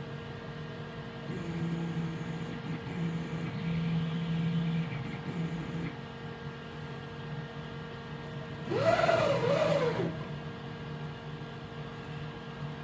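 CNC lathe axis motors moving the tool post during an automatic tool touch-off, with a steady machine hum underneath. A low whine from slow probing moves comes and goes in the first half. About nine seconds in comes a short, louder rapid traverse whose pitch rises and falls twice.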